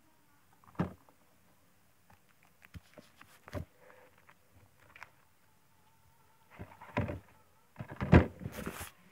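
Hands handling a plastic DVD case: scattered clicks, taps and light rubbing, with a louder cluster of knocks and rustling near the end.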